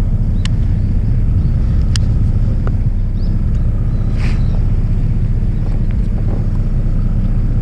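Steady low rumble of a fishing boat's engine running while the boat drifts, with a few faint clicks in the first couple of seconds.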